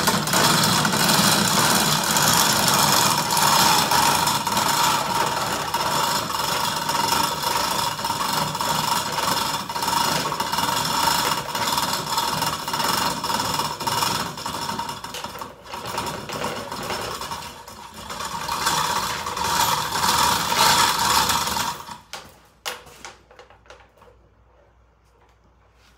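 Chain hoist lowering a lawn tractor's V-twin engine: the chain runs steadily through the hoist with a continuous rattle and clicking, drops off briefly a little past the middle, and stops about 22 seconds in.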